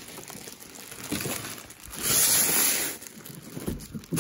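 Handling noise from a massage-chair side panel and its packing: soft rustling and rubbing, with a louder rustling scrape of about a second near the middle and a few light knocks near the end.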